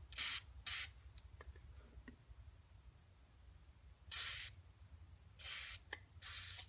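Aerosol spray can hissing in five short bursts, two about a second apart and then three close together near the end, blowing cleaner through the oil hole of a connecting rod's big end to check that the hole isn't plugged. A few faint clicks fall between the bursts.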